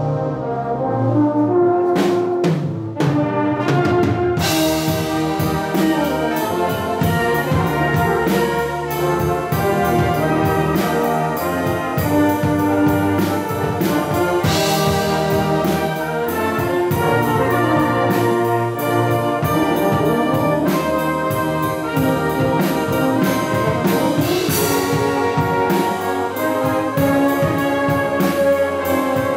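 Brass band with drum kit playing a tune: tubas, cornets and trombones over a steady drum beat, with cymbal crashes about halfway through and near the end.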